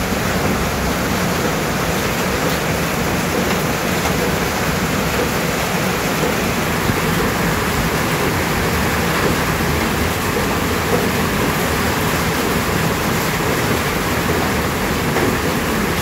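Heavy monsoon rain pouring down on a corrugated tin kitchen, a steady, even rushing with no breaks.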